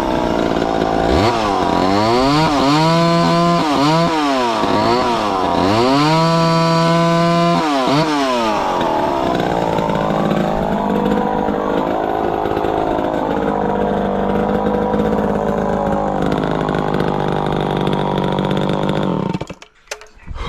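Chainsaw revved up and down several times, then held running at a lower, wavering pitch as it cuts wood, before stopping abruptly near the end.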